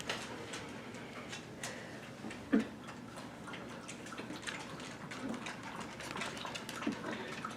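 A shepherd-mix puppy lapping water from a bowl: quick, irregular wet clicks, with one brief louder sound about two and a half seconds in.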